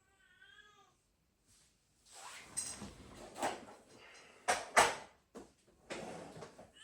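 A cat gives one short meow at the start. Then rustling and clattering handling noise with several sharp knocks, the loudest a little past the middle.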